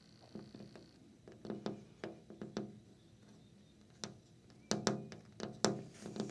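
Long fingernails tapping on a window, about a dozen quick, irregular taps in small clusters, the loudest ones near the end.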